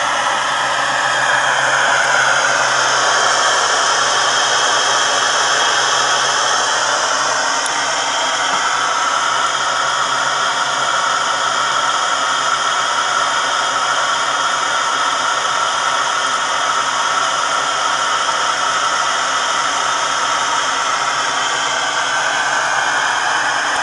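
Alpha-type Stirling engine running steadily while driving a generator under load, heated by a gas camping-stove burner: a continuous whirring hiss whose pitch drifts slightly.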